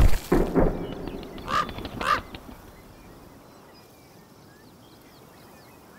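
Bighorn sheep rams clashing horns head-on: a loud crack right at the start, followed by two or three more knocks within the first second. Two short honking calls come about a second and a half and two seconds in, then only a low steady background remains.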